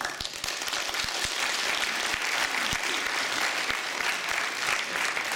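Audience applauding, breaking out suddenly and staying steady.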